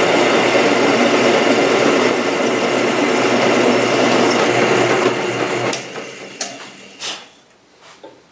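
Bench drill press running with a Time-Sert taper bit cutting the taper into a two-stroke cylinder's head-stud hole. It is switched off about five seconds in and winds down, with a few knocks as it stops.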